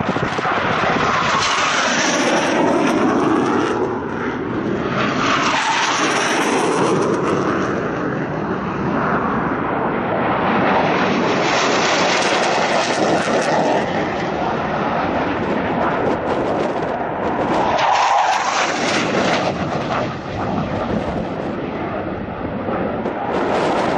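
Jet noise from RAF Panavia Tornado jets and their twin RB199 turbofan engines, flying low past in turn. The loud sound swells and fades several times, sliding in pitch as each jet goes by.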